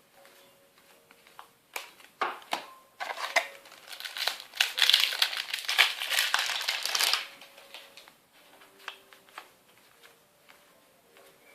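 Foil booster pack wrapper crinkling as it is torn open and crumpled: a few sharp crackles about two seconds in, building to a dense crinkling for about three seconds, then only faint light ticks.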